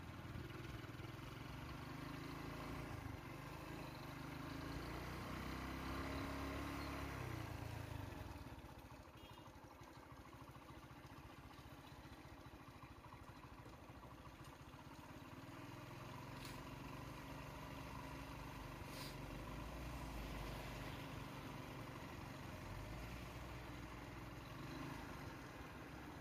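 Vehicle engine idling with a low, steady rumble that drops away for several seconds in the middle and then returns, with two faint ticks near the end.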